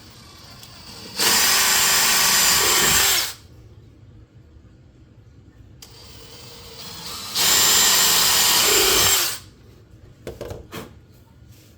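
Power drill boring two holes into a cracked wooden bowl, in two runs of about two seconds each several seconds apart, each starting with a brief quieter spin-up. A few light clicks and knocks follow near the end.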